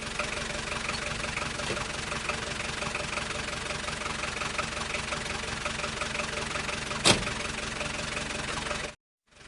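Car engine sound effect for a taxi, running steadily at idle. There is one sharp knock about seven seconds in. Near the end the sound cuts off suddenly, then comes back as the loop restarts.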